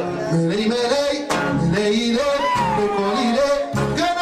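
Eritrean pop music with singing: a melody line over a bass that steps between notes, with a steady groove.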